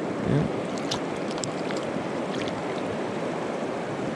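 Mountain river flowing: a steady rush of running water.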